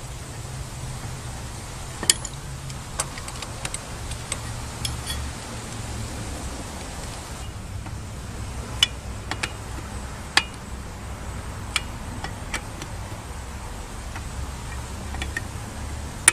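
Sharp metallic clinks and clicks of a lug wrench, lug nuts and jack during a car tire change, coming irregularly over a low steady hum.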